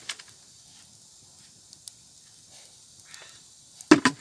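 Small wood campfire grilling skewered fish, crackling quietly with a few scattered pops. Near the end comes a short cluster of loud knocks or pops.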